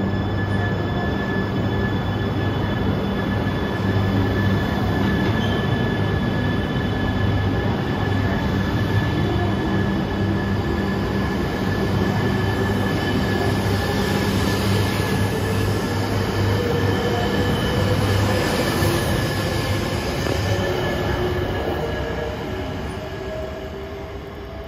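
JR East E3 series 1000 Shinkansen pulling out of the station: a steady hum, then a motor whine that climbs slowly in pitch as the train gathers speed. The sound fades near the end as the train draws away.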